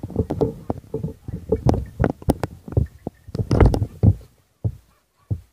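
Irregular low rumbling gusts of wind buffeting the microphone, dying away near the end.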